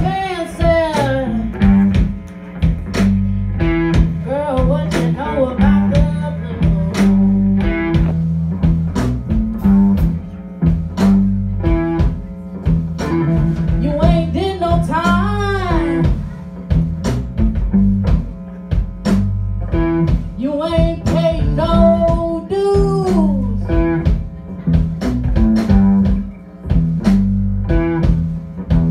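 Live blues band playing: electric guitar, electric bass and drum kit keeping a steady beat, with a lead line of sliding, bending notes over the top.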